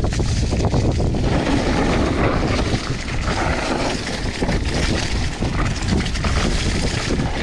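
Wind buffeting the microphone while a mountain bike rolls at speed over a dirt trail covered in dry leaves, its tyres crackling through the leaves and the bike ticking and rattling over the bumps.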